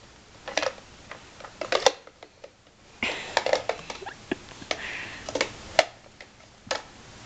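Plastic blocks knocking and rattling against a plastic shape-sorter bucket as it is handled and tipped over. The sound is a string of sharp clatters, with a denser burst about three seconds in.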